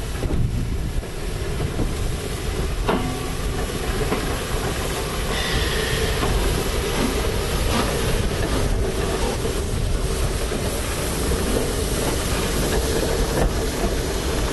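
Peppercorn A1 Pacific steam locomotive 60163 Tornado rolling slowly past: a steady hiss of steam over a low rumble, with a few sharp clicks from the wheels on the rails.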